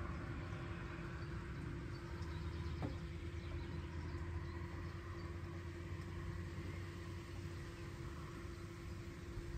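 FJD VIDAR Z42P mower running at a standstill: a steady hum with a constant tone and low rumble.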